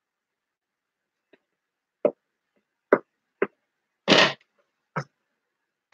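A handful of short, separate knocks and taps from a spatula and a plastic mixing bowl of soap batter being handled. There is a faint tap, then several sharp knocks, with a longer, brighter clatter a little after four seconds in.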